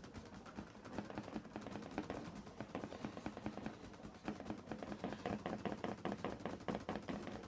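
A drawer making a fast, irregular run of small clicks and taps, denser and a little louder in the second half, over a faint steady hum.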